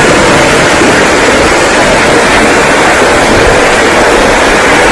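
Heavy rain pouring down in a loud, steady hiss.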